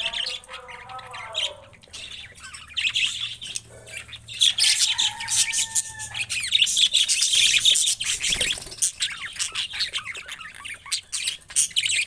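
A flock of budgerigars chirping, squawking and chattering together, busiest and loudest from about four to eight seconds in.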